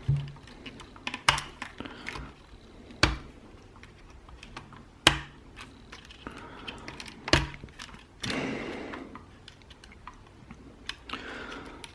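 Clicks and knocks of hands and a tool working on the opened speaker's circuit board and cables: four sharp knocks about two seconds apart among lighter ticks, with a short scraping rustle about eight seconds in and another near the end.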